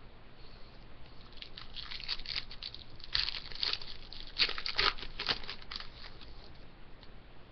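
Foil wrapper of a hockey card pack being torn open and crinkled by hand, in an irregular run of crackles that is busiest in the middle.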